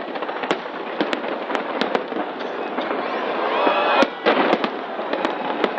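Fireworks display going off: a dense, continuous crackle with many sharp bangs throughout, a quick cluster of them about four seconds in.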